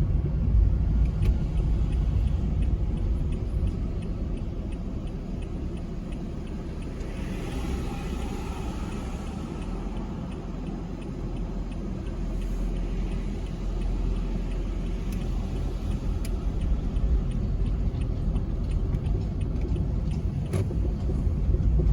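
Steady low rumble of a car driving, engine and tyre noise, easing slightly in the middle and building again.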